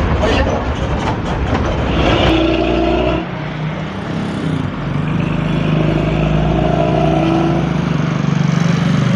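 Hino AK3-HR bus's diesel engine and exhaust growling ("ngorok") under way, heard from inside at the rear of the bus; it eases off briefly about three seconds in, then pulls again with a steady low drone.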